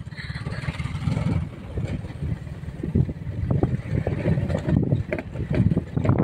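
A motorbike running as it rides along a dirt track, with wind buffeting the microphone in uneven low gusts.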